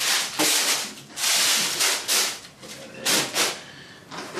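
Tissue paper rustling and crinkling in several short bursts as it is handled and pulled from a shoebox.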